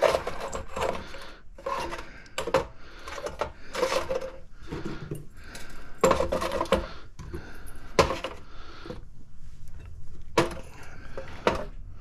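Small metal microwave-magnetron parts clinking and knocking as they are set down and slid into rows on a steel scale platform: irregular sharp clicks, several a second.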